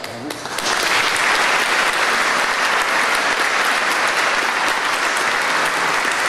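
Audience applauding: a few scattered claps that swell within the first second into steady, dense applause.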